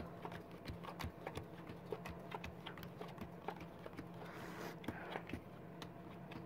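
Playing cards being dealt one at a time from the deck onto piles on a felt-covered table: a quick run of faint clicks and taps, about three a second.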